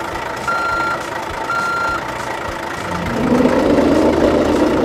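Reversing-alarm beeps, about one a second, stopping about two seconds in. About three seconds in, a louder rough, low noise sets in and holds.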